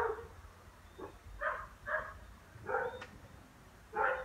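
A dog barking: four short barks about half a second apart.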